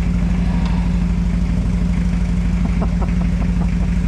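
A car engine idling steadily with an even low pulse.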